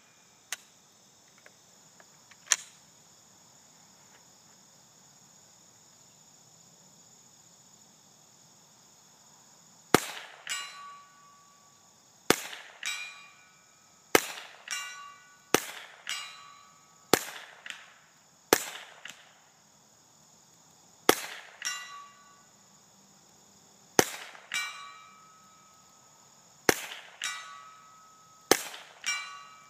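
Suppressed Ruger 10/22 .22 LR rifle firing slow, single shots, each a sharp crack followed by the ringing of a steel target plate. One shot comes about two seconds in, then after a pause about ten more come every one to three seconds. Crickets chirp faintly underneath.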